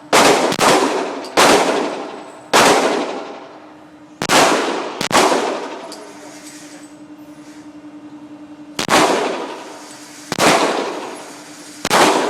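Glock 23 pistol in .40 S&W fired about nine times at an uneven pace, each shot sharp with a long echoing tail. A steady low hum shows in the pause in the middle.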